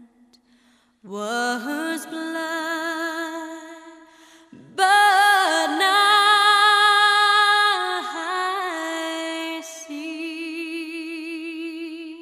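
Slow music: a high solo voice singing long held notes with vibrato, in several phrases, loudest from about five to eight seconds in.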